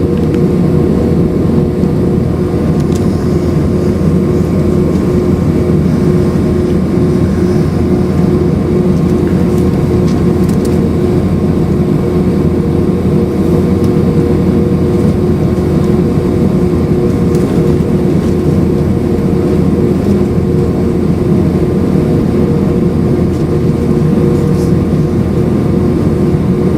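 Steady jet engine and airflow noise inside the cabin of an Airbus A319 with IAE V2500 engines: a loud, even roar with a few held tones that neither rise nor fall.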